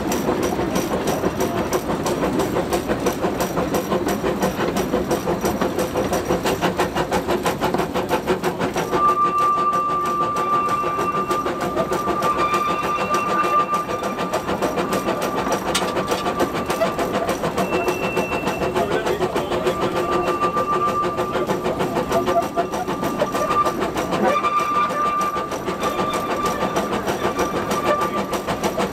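Narrow-gauge steam locomotive running, heard from its cab: a fast, even rhythm of exhaust beats and running gear. From about nine seconds in, a steady high tone comes and goes above it.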